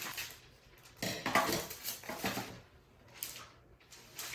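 Scissors cutting through a sheet of clear plastic film, in about three separate snips roughly a second apart.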